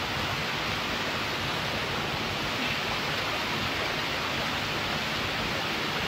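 Steady rush of water falling and running over rocks at a small forest waterfall.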